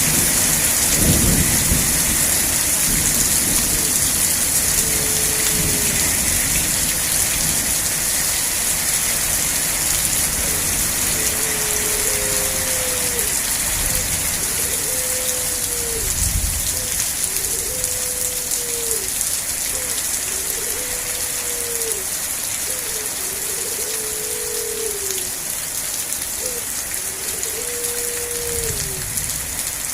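Steady heavy rain, with low rumbles of thunder near the start and again at times later on.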